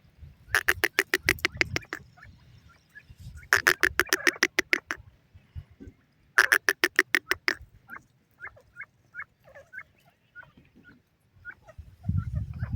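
Game bird giving three runs of rapid, harsh repeated notes, each lasting about a second and a half, then faint short high peeps like chicks calling. A low rumble starts just before the end.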